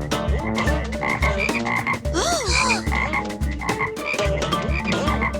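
Ice cream truck rigged with noise-making gadgets, set off and giving out a strange, unappealing racket in place of an ice cream jingle: a steady beat of low thumps about three a second, with sliding swoops and clatter over it.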